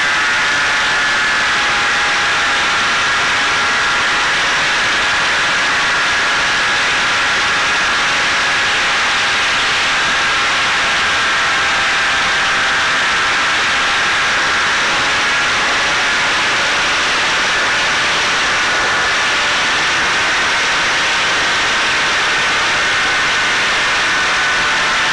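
Electric motor and propeller of a Caipirinha fixed-wing FPV drone in flight, heard through its onboard camera: a steady high whine over loud rushing wind.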